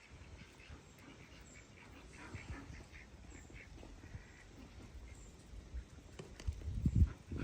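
Dalmatian puppies giving a run of short, faint squeaky yips and whines. Near the end a louder low rumble comes in.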